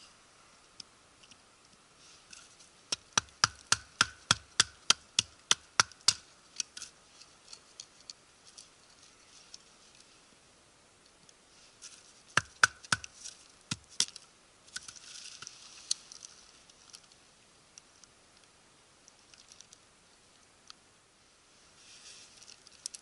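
Dry kindling cracking and snapping under a belt knife: a quick run of about a dozen sharp cracks, about four a second, then a few more midway, followed by a brief scraping hiss.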